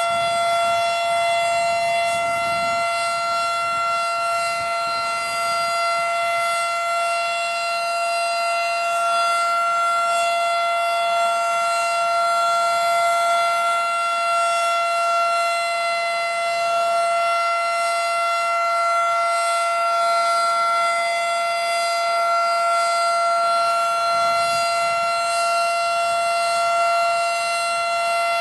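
Federal Signal Model 5 electromechanical outdoor warning siren sounding a loud, steady tone at an unchanging pitch, the alert signal of a scheduled siren test.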